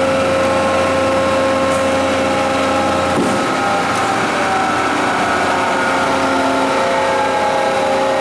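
Arter horizontal-spindle rotary surface grinder running steadily, a hum with several held tones from the wheel spindle and hydraulics. About three seconds in, a low hum drops out and the tones shift as the machine is sent back to its home position.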